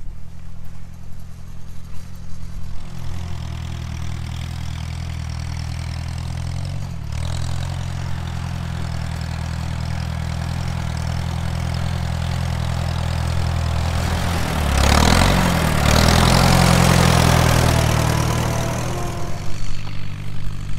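Old farm tractor's engine running steadily at a low, even pitch, growing louder for a few seconds from about fifteen seconds in.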